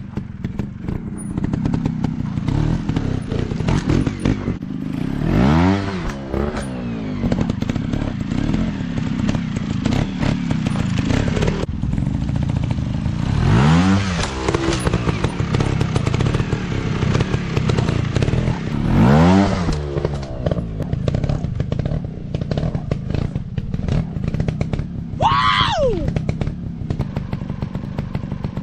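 Small trail motorcycle engines running, with the throttle revved up and back down three times, then a higher-pitched quick rise and fall of revs near the end.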